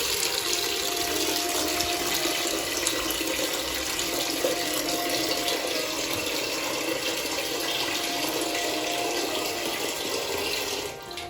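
Kitchen tap running steadily into a pot of raw rice, filling it with water for washing the rice; the flow stops near the end.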